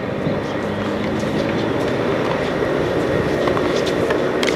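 A steady low rumble of outdoor background noise, with one sharp hit of a tennis racket striking the ball near the end.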